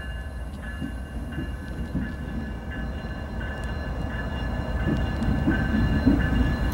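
Diesel locomotive of a Norfolk Southern light-engine move (GE ES44AC) running nearby out of sight. A low engine rumble grows louder toward the end, under a high, steady squeal from the wheels on the rail that breaks off at short intervals.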